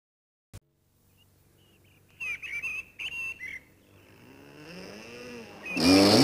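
A few short, wavering bird whistles. Then the motor of a radio-controlled model boat whines up in pitch and comes in loud near the end.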